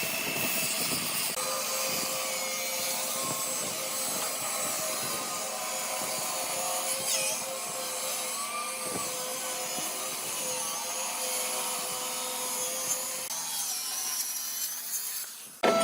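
Wood being worked by a machine: a steady rubbing, scraping noise over a faint hum. The hum stops a few seconds before the end.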